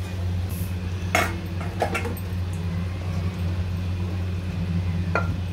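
A wooden spatula scooping a thick paneer, capsicum and onion mixture out of a kadhai into a stainless-steel bowl, with a few sharp knocks and clinks against the pan and bowl, about one and two seconds in and again near the end. A steady low hum runs underneath.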